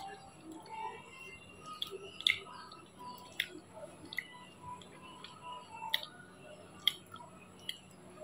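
A person eating by hand: small shells are cracked and picked apart with the fingers, giving a few sharp clicks, the loudest about two seconds in, with soft chewing in between.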